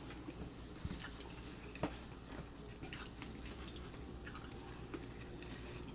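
Faint chewing and mouth sounds of people eating a shrimp boil, with scattered small clicks and smacks, the sharpest about two seconds in.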